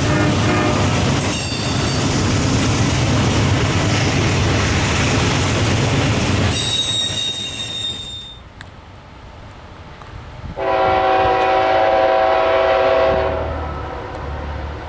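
A train passing close by, rumbling and clattering, with brief horn notes at the start and a high squeal about six seconds in. Then a locomotive air horn sounds one long chord of nearly three seconds.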